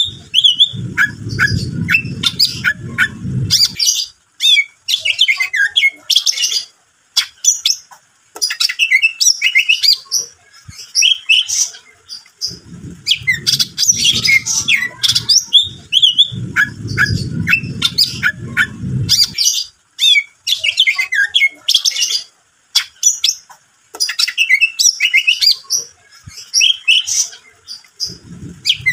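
A caged male green leafbird (cucak ijo) singing vigorously: rapid, varied phrases of chirps and whistles in bursts with short pauses. A low rumbling noise runs underneath twice, near the start and again mid-way.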